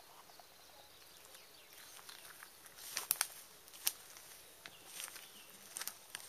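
Footsteps through garden undergrowth: irregular crackles and snaps of twigs and leaves underfoot, loudest about three to four seconds in.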